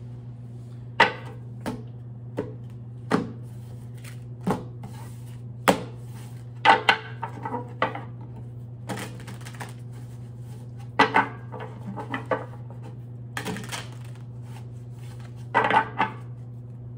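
Tarot cards being handled and laid down on a table: a dozen or so short, irregular taps and clicks over a steady low hum.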